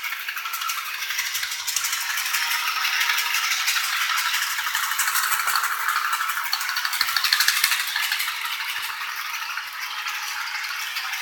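Model train rolling along the track: a fast, continuous clicking rattle of the cars' wheels, with a faint steady hum underneath.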